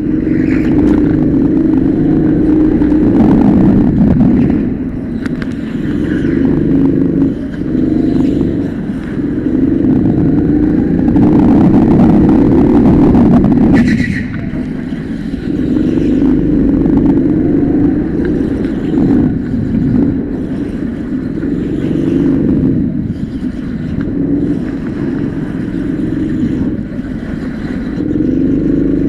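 Go-kart's petrol engine heard close up from on board the kart, revving up and falling back again and again as the kart accelerates and slows through the corners, with short dips every few seconds.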